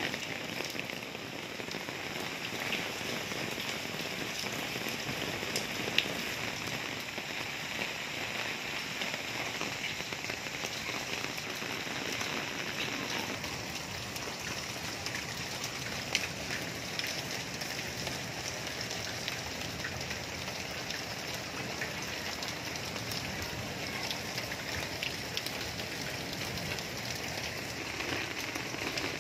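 Heavy storm rain pouring steadily onto a rooftop, potted plants and standing water, with scattered sharper drop hits.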